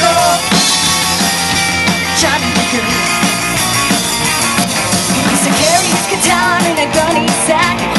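Live rock-and-roll band playing an instrumental passage between sung verses: electric guitar, electric bass and a drum kit, with cymbal strikes in the second half.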